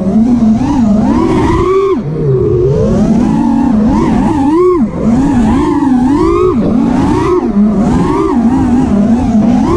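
Armattan Rooster 6-inch FPV racing quadcopter's brushless motors and three-blade props whining, the pitch swooping up and down constantly with the throttle. There are short drops in pitch and loudness about two seconds and about five seconds in, heard from the camera riding on the quad.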